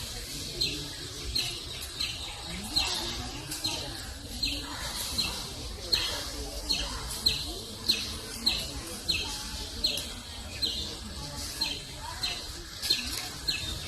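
A bird calling one short, sharp note over and over, at an even pace of about three calls every two seconds, with faint voices murmuring underneath.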